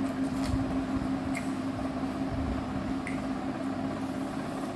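Mouth sounds of eating by hand: chewing and a few small wet smacks, with the squish of fingers kneading rice on a plate, over a steady low hum.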